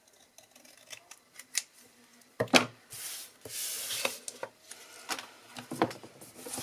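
Scissors snipping card stock with small clicks, then a sharp knock as the scissors are put down on the craft mat, followed by about a second of paper rustling and sliding as the cut-off scraps are cleared away, and light clicks of handling near the end.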